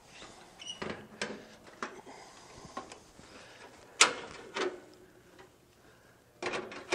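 A few scattered knocks and clicks, the loudest about four seconds in and a short cluster near the end.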